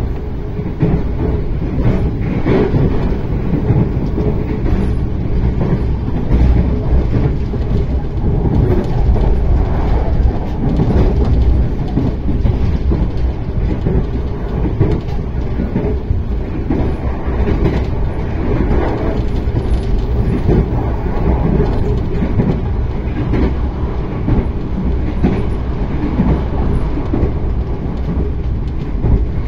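Passenger train in motion, heard from inside the carriage: a steady, loud rumble of wheels running on the rails, with faint clacks.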